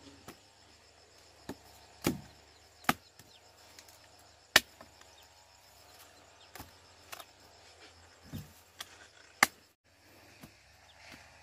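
About ten sharp, irregularly spaced chopping knocks, the loudest about four and a half and nine and a half seconds in. A faint, steady high chirring runs underneath.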